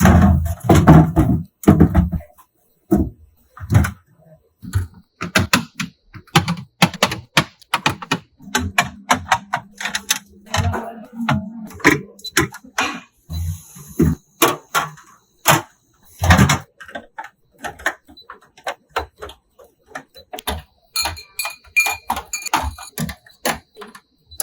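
A quick, irregular run of knocks, clicks and clatters as food containers, jars and bottles are set onto refrigerator shelves and into its drawers, with a few short ringing clinks near the end.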